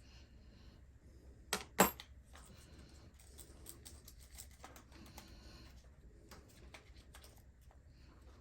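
Two sharp clicks about a second and a half in, the second loud, then faint scattered ticks and handling noise: small tools and parts of an RC car differential being handled on a bench.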